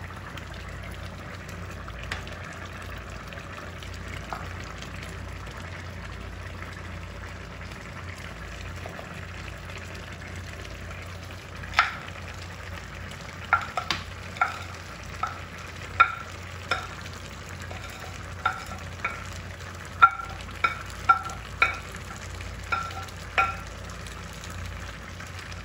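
A pot of Bukhari rice sizzling steadily on the stove. From about halfway through, a metal utensil clinks against the pot about fifteen times, each clink ringing briefly at the same pitch, as carrots and raisins are spread over the rice.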